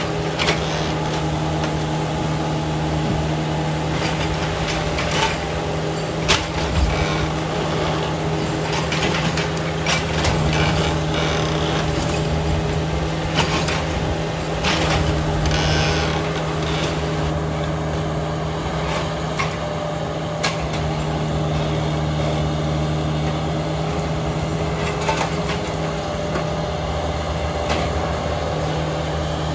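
Hyundai 55W-9A wheeled mini excavator's diesel engine running steadily under hydraulic load while it digs a trench, with scattered sharp knocks as the bucket works the soil.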